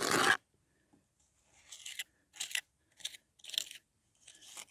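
Small steel trowel scraping and pressing gritty lime mortar into the joints of a brick panel. It starts with one louder scrape, then after a pause come four or five short scraping strokes.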